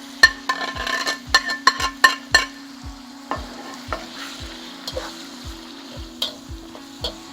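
Chicken thighs sizzling in hot oil in a big pot as they start to fry. A metal utensil stirs and clanks against the pot, striking often and ringing in the first two and a half seconds, then only now and then.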